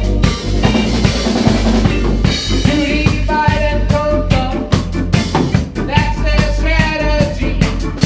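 Reggae band playing, with the drum kit keeping a steady beat over a heavy bass line. A melodic instrument line comes in over it about three seconds in.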